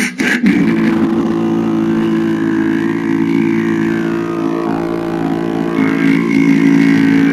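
Beatboxed vocal drone: a steady, engine-like buzzing hum with a fixed pitch, shifting slightly about six seconds in.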